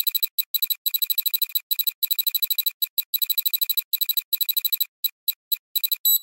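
Fast, high-pitched electronic beeping like an alarm, in quick runs broken by short gaps. Near the end it slows to single beeps and finishes with three longer, separate beeps.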